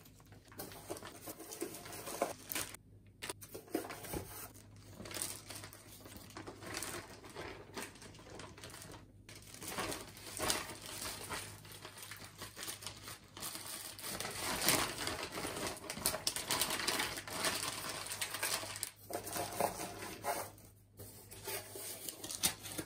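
Plastic parts bags crinkling and rustling as they are handled, with many small irregular clicks and a steady low hum underneath.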